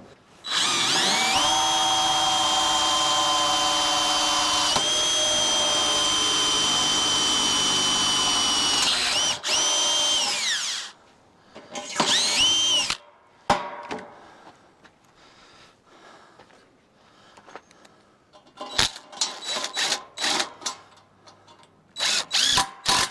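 Cordless drill spinning up and running steadily for about ten seconds, then winding down, as it works into a wooden shelf board. After it come a shorter run that spins up and down, a few clicks, and several quick short bursts of the drill near the end.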